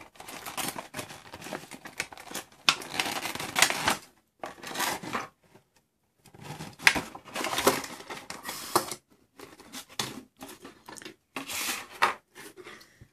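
Stiff clear plastic blister-pack tray crackling and crinkling in irregular bursts as it is handled and the toys are pulled out of it, with a short pause partway through.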